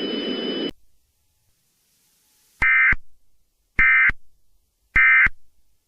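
Emergency Alert System SAME end-of-message data tones: three short, identical, buzzing digital bursts about a second apart, marking the end of the alert. Before them the static-laden broadcast audio cuts off abruptly about half a second in.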